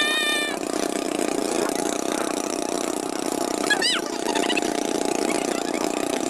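Motorboat engine running steadily while towing, a constant drone, with two brief high-pitched cries: one right at the start and a rising-and-falling one about four seconds in.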